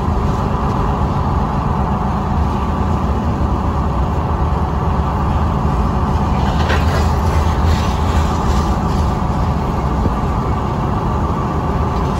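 Loaded coal hopper cars of a freight train rolling by in a steady rumble, mixed with the road noise of a car pacing alongside, heard from inside the car.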